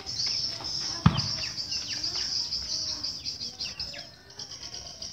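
A dense, high, steady chatter of swiftlet chirps and twitters, with short falling calls through it. A sudden thump comes about a second in.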